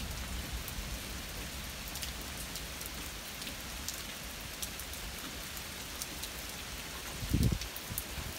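Steady rain falling, an even hiss with scattered ticks of single drops striking nearby. Near the end come a couple of short low thumps, the loudest sounds in the stretch.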